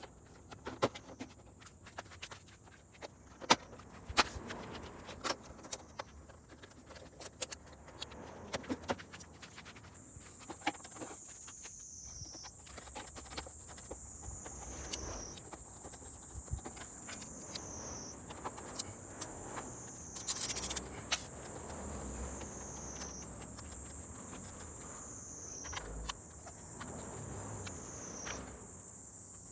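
Scattered sharp clicks and knocks for the first ten seconds or so. Then an insect call takes over: a high buzzing note that falls in pitch, repeated about every two and a half seconds.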